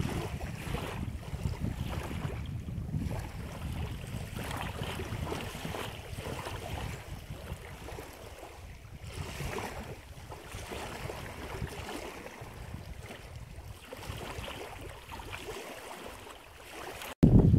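Wind buffeting a handheld camera's microphone as a low rumble that eases off after the first half, with faint footsteps on a dirt trail about once a second.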